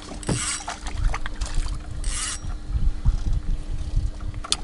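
Wind rumbling on the microphone and water washing against the side of a boat on open sea, with two short hisses of water and a faint steady hum underneath.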